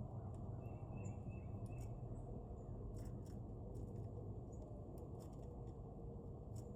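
Steady low outdoor rumble. A short run of four quick bird chirps comes about a second in, with scattered faint clicks.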